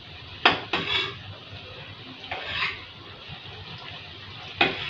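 A metal spatula clinks and scrapes against a steel kadai a few times while jackfruit pakoras are turned over in hot oil. The oil fries with a steady sizzle underneath.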